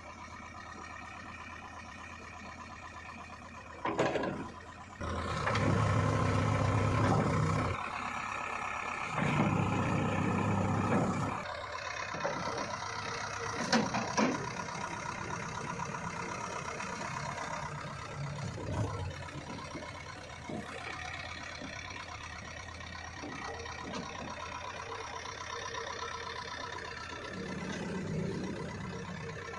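JCB 3DX backhoe loader's diesel engine running, revving hard twice for about two seconds each as the front loader bucket works the soil. There is a sharp knock just before the first rev and a few metallic clanks a little after the second.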